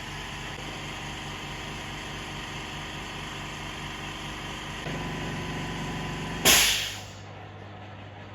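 Steady machine hum that grows louder about five seconds in, then a short, loud hiss of released air, like a pneumatic release, after which the hum is quieter.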